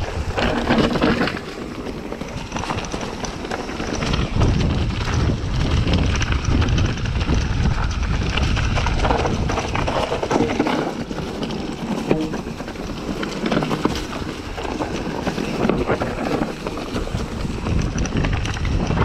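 Wind buffeting an action camera's microphone over the knocks and rattles of a bicycle riding over rough, rocky ground.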